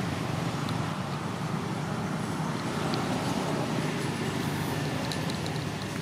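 Steady low background rumble, with a few faint clicks about five seconds in.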